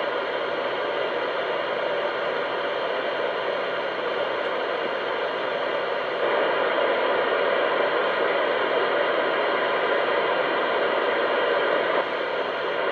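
CB radio receiver hissing with steady static from its speaker, a high noise level with no readable signal coming through. The hiss gets slightly louder about six seconds in and drops back near the end.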